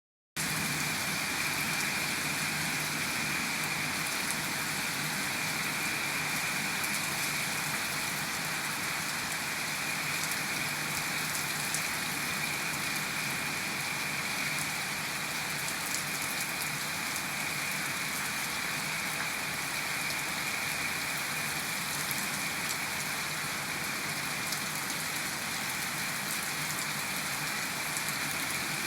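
Heavy rain falling steadily in a storm, an even hiss of rain on surfaces with faint scattered drop ticks.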